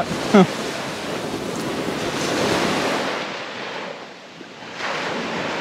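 Small waves washing onto a sandy beach. The wash swells and eases, dipping briefly about three-quarters of the way through before rising again.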